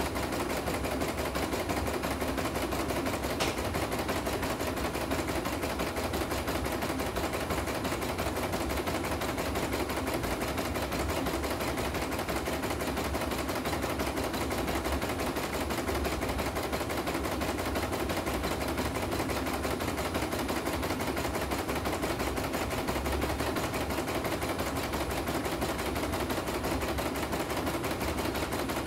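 CNY E900 computerized embroidery machine stitching a design on a test run after servicing: a steady, rapid mechanical clatter of needle strokes that keeps an even pace throughout.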